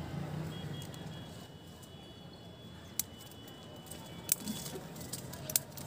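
Hand scissors snipping off the leaves of a mango shoot to defoliate it as a graft scion: a few sharp snips a little over a second apart.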